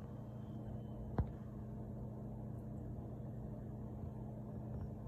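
Steady low hum with a single sharp click about a second in.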